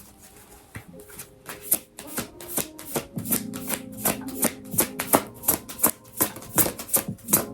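Deck of oracle cards being shuffled by hand: quick, irregular crisp card clicks, about three to four a second, starting about a second in. Soft background music with held tones plays under them.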